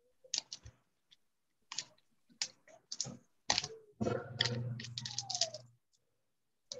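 Irregular light clicks and taps, a few at a time, with a denser, louder stretch about four seconds in.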